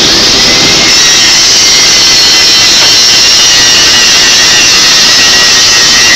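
Angle grinder running against a steel pipe, a loud steady high-pitched whine with grinding noise and no break.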